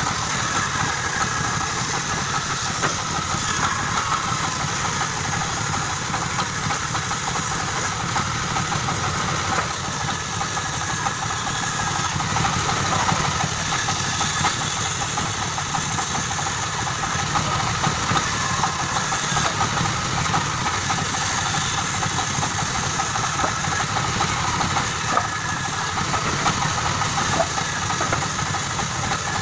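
Band saw running steadily while its blade cuts a thick wooden board along a curved line.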